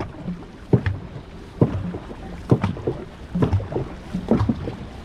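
Dragon boat crew paddling in time: a sharp stroke a little more than once a second over the steady rush of water and wind.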